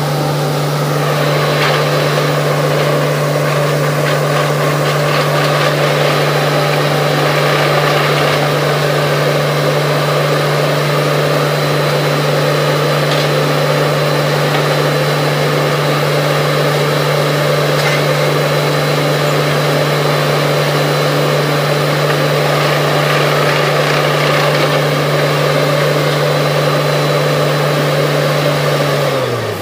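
Truck-mounted borewell drilling rig's diesel engine running steadily at high speed, a constant loud hum that drops in pitch right at the end as it throttles down.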